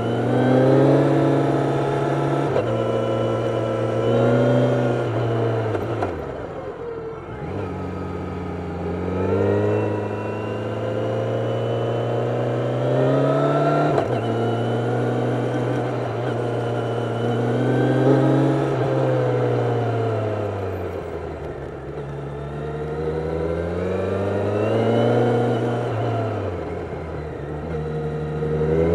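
Kawasaki 1000SX inline-four motorcycle engine heard onboard, its revs climbing under throttle and falling back several times, with three deep drops in pitch as it comes off the throttle.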